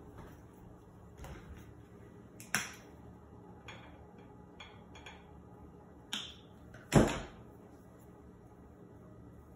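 Light clicks and taps of painting materials being handled on a wooden table: a paint tube and brush at a palette plate. There are a few small clicks and one louder knock about two-thirds of the way through.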